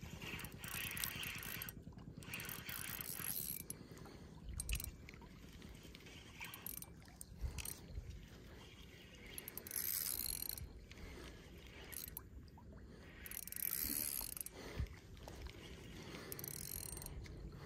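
Spinning reel being cranked in several spells, its gears whirring and clicking as fishing line is wound in.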